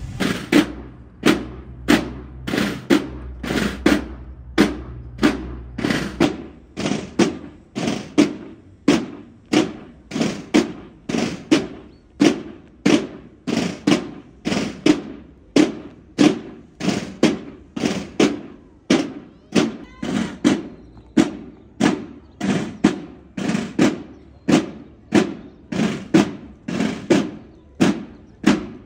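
Marching drums, snare and bass drum, beating a steady ceremonial march cadence of evenly spaced strokes.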